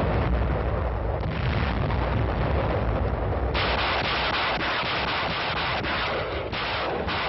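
Heavy artillery barrage: a dense, continuous din of gunfire and explosions. About three and a half seconds in it turns sharper, with rapid repeated shots.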